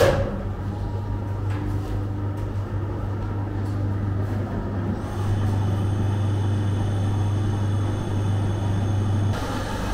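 Rotary bread oven starting up: a sharp click, then the steady low hum of its motor. About halfway a brighter hissing layer joins and the sound gets a little louder. The hum cuts off suddenly shortly before the end.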